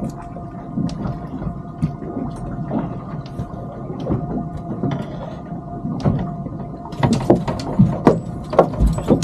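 Irregular knocks and clicks of fishing tackle and a small fish being handled aboard a small boat, growing busier and louder about seven seconds in, over a steady hum.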